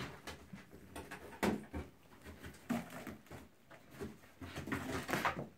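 Bengal kitten moving and pawing on a carpeted cat-tree perch: irregular scuffs, taps and rustles, with a few louder ones about a second and a half in and near the end.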